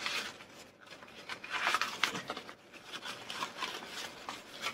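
Wrapping paper rustling in short, irregular spells, with handling noise, as a packed item is unwrapped.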